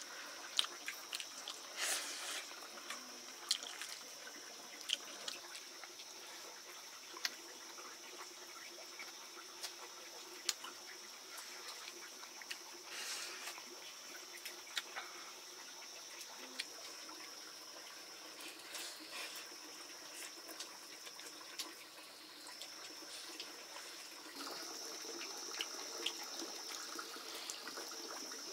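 Water trickling and splashing, with many scattered small clicks and knocks over a steady high-pitched whine.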